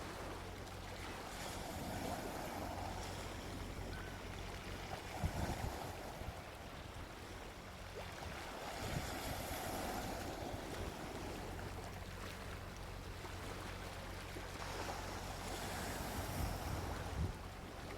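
Gentle ocean waves washing onto a beach, the surf swelling and fading every few seconds, with a few short low thumps of wind on the microphone.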